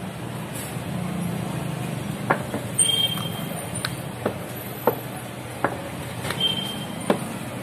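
Wooden rolling pin knocking against a floured stone slab while samosa dough sheets are rolled out: sharp short clacks roughly every half to one second, about eight in all. Under them runs a steady low hum, with PANN's top tag pointing to vehicles.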